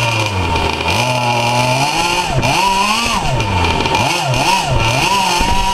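K&B .72 glow engine running at high speed in a Byro-Jet ducted fan unit, a loud whine with its pitch wavering up and down repeatedly from about two seconds in.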